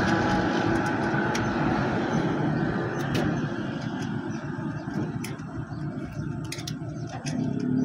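Diesel engine of a Case Super K backhoe running steadily, easing off through the middle and picking up again near the end, with scattered sharp clicks over it.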